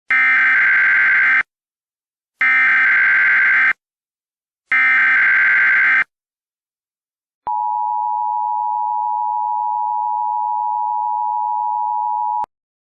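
Emergency Alert System header: three short bursts of SAME digital data tones, about a second and a half each, then the steady two-tone attention signal for about five seconds, cutting off suddenly. It marks the start of an emergency broadcast message.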